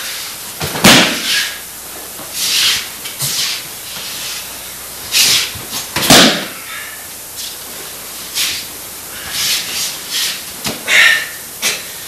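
Aikido practice with no talking: repeated quick swishes of gi and hakama fabric as the partners move and throw, and two heavier thuds of a body landing on the mat, about a second in and about six seconds in.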